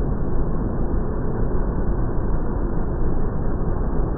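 Pit bike engines running as two riders lap an indoor track, a steady, unbroken engine noise with no clear pauses.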